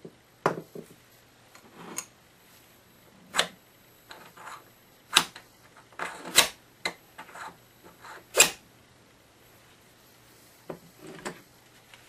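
Irregular sharp metallic clicks and knocks as hands work a brass compression nut and olive on the end of a copper pipe. There are about a dozen of them, with the loudest about two-thirds of the way through.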